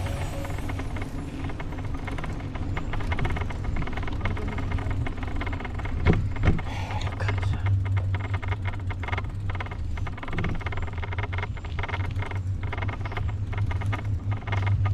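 Bicycle riding along a road: a steady low rumble of tyres and movement, with frequent small rattles and clicks throughout.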